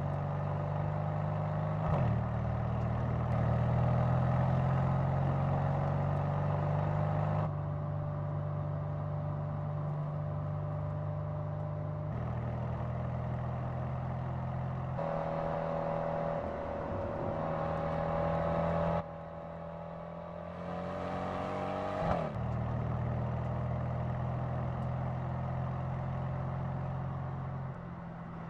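Mercedes-AMG C63 S Coupe's twin-turbo V8 running under load as the car drives, its pitch climbing slowly in long pulls. The sound changes abruptly every few seconds as separate shots are cut together, with a quick swoop in pitch about 22 seconds in.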